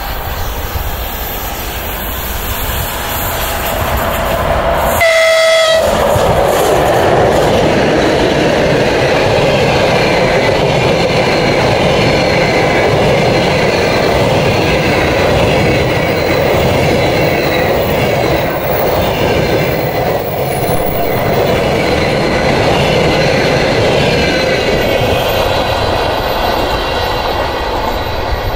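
A train passing close by: a short horn blast about five seconds in, then about twenty seconds of steady wheel-and-rail rolling noise that fades near the end.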